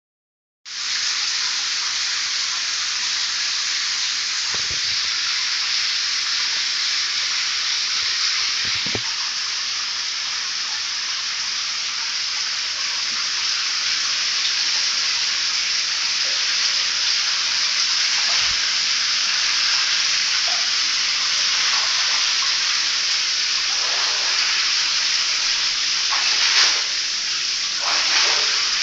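Shower running, its spray hissing steadily onto a tiled shower floor where the water stands in a pool instead of draining, with a couple of brief splashes near the end.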